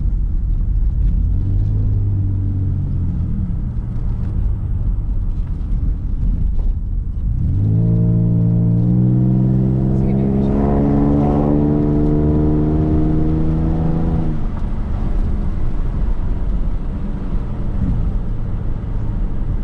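2007 Ford Mustang's 4.0-litre V6 engine and road rumble heard from inside the cabin while driving. From about seven and a half seconds in, the engine note climbs in pitch as the car accelerates, then eases off about seven seconds later.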